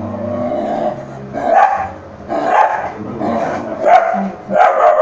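Dog barking angrily, a run of sharp barks about once a second, with growling between them.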